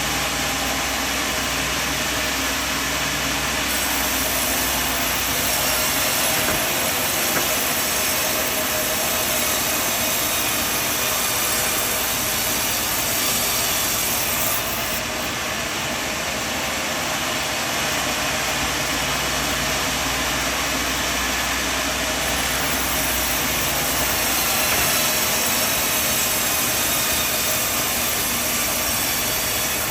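Sawmill machinery running with a steady mechanical noise, a low hum under it fading for a stretch in the middle.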